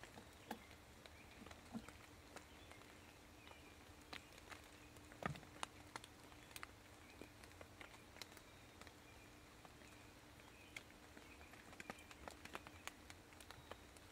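Wild turkeys stepping about on dry, wet forest leaf litter: quiet, scattered light ticks and rustles, the loudest about five seconds in, over a faint steady hum.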